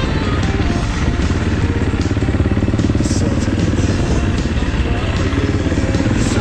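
AJP PR7 motorcycle's single-cylinder engine running steadily under way, its firing pulses dense and even.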